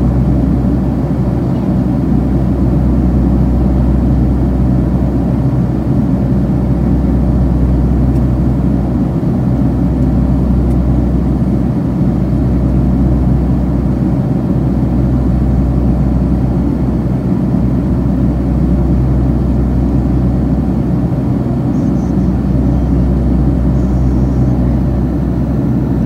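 Jet airliner cabin noise in level flight: the steady, loud low rumble of the engines and rushing air, heard from inside the cabin at a seat beside the wing.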